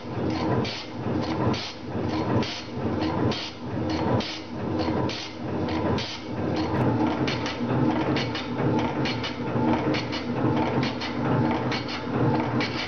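Metal shaper running at about one stroke a second, its ram driving a round-nose tool back and forth in a light 0.2 mm finishing cut across cast iron, with a regular mechanical clatter that swells on each stroke.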